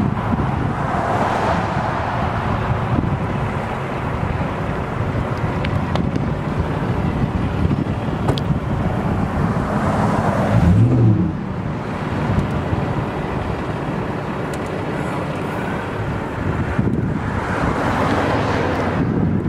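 Wind buffeting the microphone over the steady sound of traffic passing on the interstate, swelling and fading as vehicles go by. About halfway through, a louder low engine sound from a passing vehicle briefly comes through.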